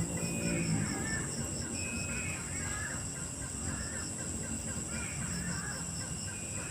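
Night chorus: insects trill steadily with a pulsing chirp about four times a second, while a bird calls over and over in short chattering notes that rise and fall.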